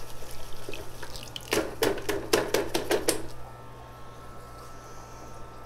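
Water splashing and sloshing in a bucket as a crabapple seedling's root ball is swished through it to wash the soil off the roots. A quick run of splashes comes about a second and a half in and lasts until about three seconds in, then it goes quieter.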